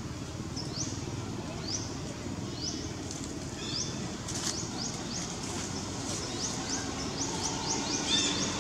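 A bird calling with short, high chirps, about one a second at first and quickening to several a second from about six seconds in, over a steady low outdoor background rumble.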